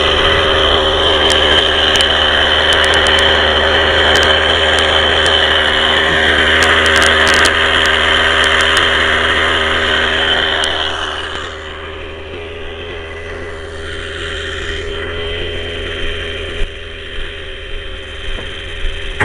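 Nitro engine of an Avant Aurora 90 RC helicopter idling on the ground with its rotor turning: a loud, steady buzz with a high whine that drops to a quieter level about eleven seconds in. The owner judges the mixture running a little too fat (rich).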